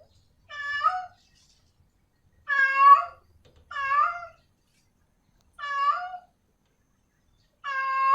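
Domestic female cat in heat meowing to call a male: five short, pitched meows about one to two seconds apart.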